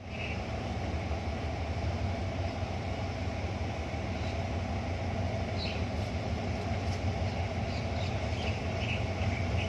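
Diesel-electric locomotive engine running with a steady low drone, growing slightly louder, while the train stands or creeps slowly toward the listener.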